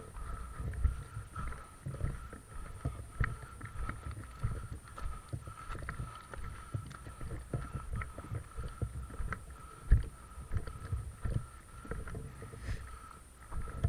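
Low rumbling wind and handling noise on the microphone, with irregular thumps and one sharper knock about ten seconds in. A faint steady high tone runs underneath.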